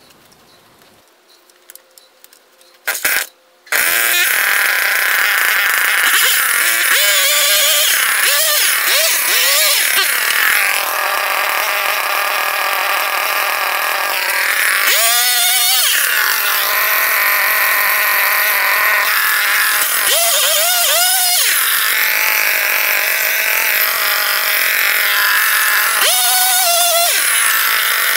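Echo CS-310 two-stroke chainsaw starting after a short pull about three seconds in, then running loudly at idle with several quick throttle revs.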